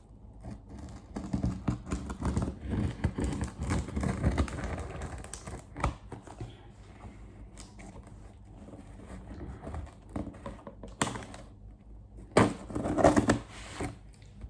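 Cardboard shipping box being worked at to get it open: a dense run of scratchy clicks and rustles for several seconds, then quieter rustling and a couple of louder scrapes near the end.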